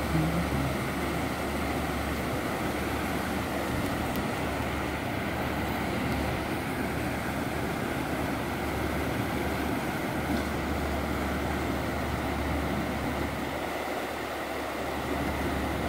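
Muddy, fast-running creek rushing over a rocky riffle: a steady, even roar of white-water rapids.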